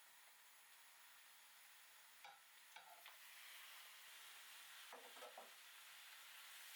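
Food sizzling faintly in a frying pan, the sizzle growing a little louder about three seconds in, with a few light knocks of a utensil in the pan as it is stirred.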